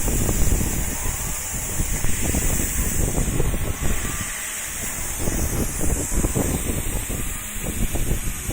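Low, irregular rumbling buffeting, like wind or handling noise on the microphone, over a steady high hiss.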